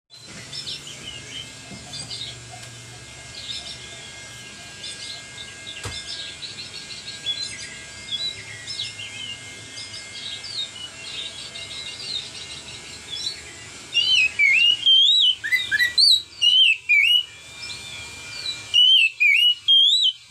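Oriental magpie-robin (kacer) singing. At first it gives a soft, busy twitter. About fourteen seconds in it breaks into its loud, clear 'ngeplong' whistles: a run of looping, rising-and-falling notes repeated in quick bursts.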